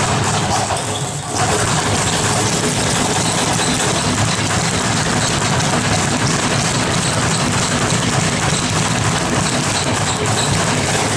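Two speed bags being punched rapidly, each bag rebounding off its round wooden platform in a fast, continuous drumming rattle.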